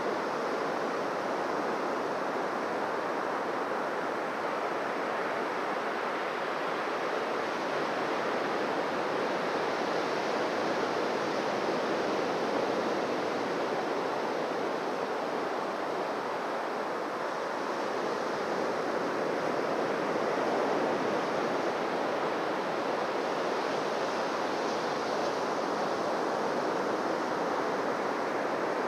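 Waves washing onto a beach: a continuous surf wash that swells gently in loudness now and then.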